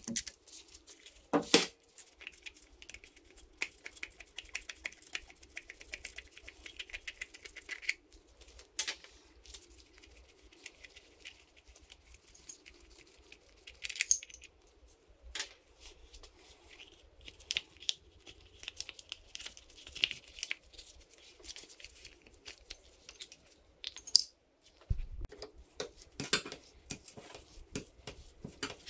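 Socket ratchet clicking and small metal clinks on the cylinder head of a Yamaha PW80's two-stroke engine as it is unbolted and worked loose by hand. A few sharp knocks are scattered through.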